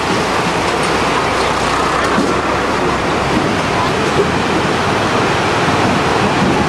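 Seti River in flood: a loud, steady rush of fast-moving water.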